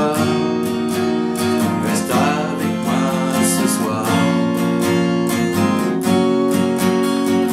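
Steel-string acoustic guitar strummed in a steady rhythm, full chords ringing, played with a capo on the first fret.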